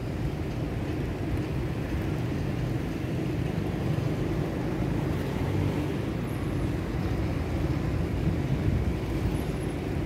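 Steady low outdoor rumble with no distinct event.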